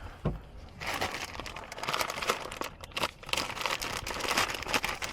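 Plastic crinkling and rustling with small crackles, starting about a second in, as the replacement door handle is taken out of its plastic packaging.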